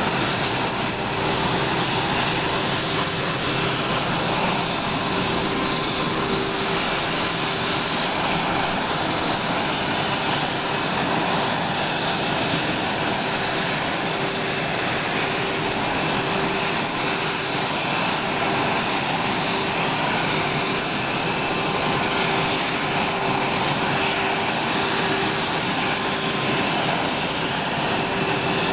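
Steady jet turbine noise from the parked Air Force One, a Boeing 747-based VC-25A: a constant rush with a high, thin whistle and a lower hum held over it.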